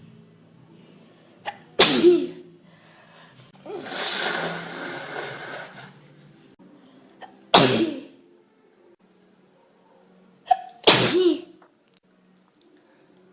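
A person sneezing three times, each sneeze a loud sudden burst with a brief intake of breath just before it, the fits coming about every four seconds. There are about two seconds of breathy noise between the first and second sneezes. The sneezing comes from hay fever and a cold.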